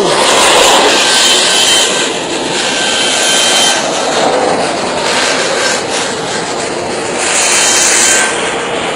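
Uncontrolled gas blowout at an oil well: high-pressure gas jetting out of the wellhead with a loud, steady, jet-like rush.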